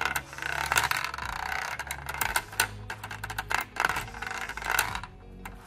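Clicks and clatter of a LEGO pinball game in play: the plastic ball rattling over the studded LEGO baseplate and the hand-worked LEGO flippers clicking, several sharp knocks in quick succession. It grows quieter near the end.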